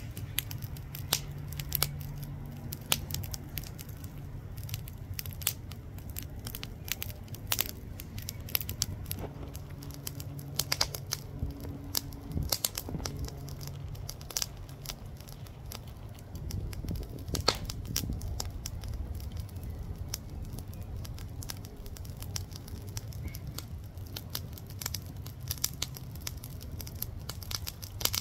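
Burning charcoal crackling and popping in a grill: irregular sharp snaps, several a second, over a low background rumble.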